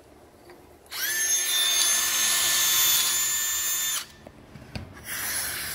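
Cordless drill with a 1/4 inch bit spinning up with a short rising whine about a second in, running steadily for about three seconds, then stopping abruptly. A brief hiss follows near the end.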